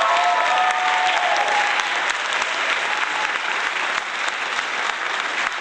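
Canned applause: a crowd clapping steadily.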